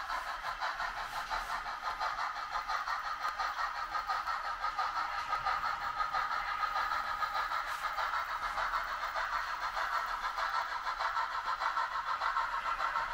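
A steady mechanical running sound, engine-like, with a fast flutter and almost no bass.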